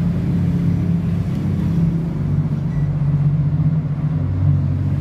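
Refrigerator fan motor running with a steady low hum, its deeper tone growing stronger about four seconds in.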